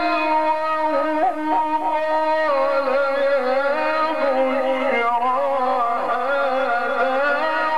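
A man reciting the Quran in the melodic tajweed style through a microphone, one voice holding long notes with slow glides and quick ornamental turns.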